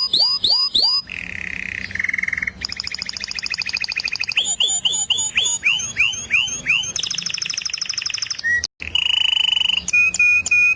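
Songbird singing a rapid, varied song built from runs of one repeated note: down-sweeping whistles, fast buzzy trills and high chirps. Each run breaks off abruptly into the next every second or two, with a brief break about nine seconds in.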